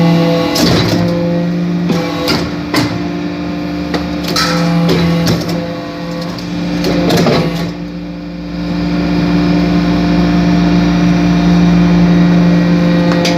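Hydraulic briquetting press running: its pump hums steadily at a constant pitch, with scattered sharp metallic clicks and knocks, mostly in the first half.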